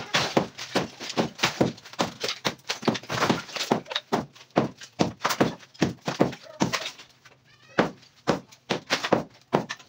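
Hammer chipping at a plastered concrete wall: rapid repeated knocks, several a second, with a brief pause about seven seconds in before the blows resume.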